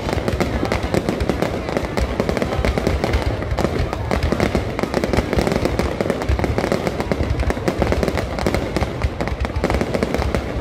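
Aerial fireworks display going off in a dense, unbroken run of bangs and crackles.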